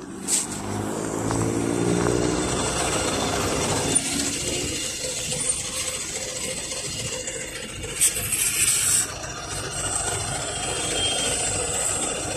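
The YaMZ-53423 diesel engine of a PAZ 320415-04 bus as the bus draws up to the stop, growing louder over the first few seconds, then running steadily close by. About eight seconds in there is a short hiss of compressed air.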